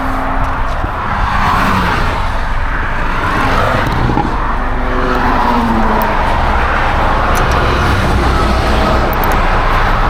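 Steady noise of road traffic passing close by, a continuous rumble that swells and fades as vehicles go past.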